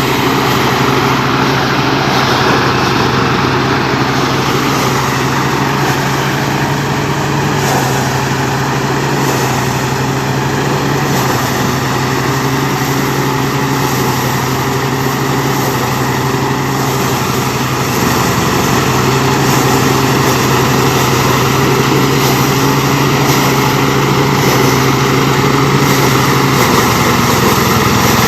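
A small engine running steadily at a constant speed, with a low hum and a broad mechanical rattle over it.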